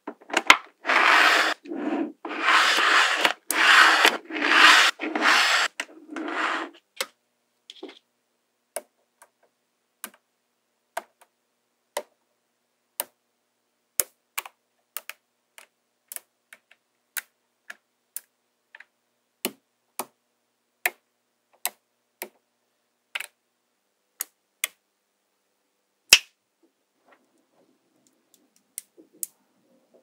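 A clear plastic card scraping through a block of small magnetic balls in about half a dozen rough strokes, splitting off a row. After about seven seconds it gives way to sharp single clicks of magnetic balls snapping into place, one or two a second, with one louder snap near the end.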